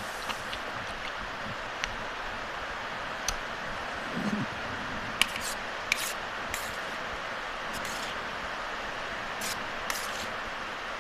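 Steady hiss of heavy rain, with scattered small clicks of eating and utensils over it.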